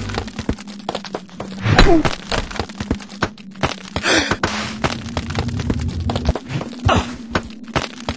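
Cartoon sound effects: a busy run of knocks and thuds over a low steady hum, with two short falling-pitch sounds, one about two seconds in and one about four seconds in.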